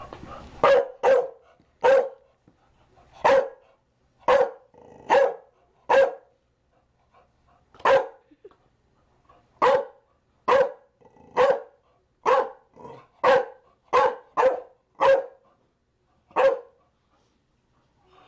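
Chow Chow barking: a run of short, single barks at uneven gaps of about half a second to two seconds, with a few coming in quick pairs.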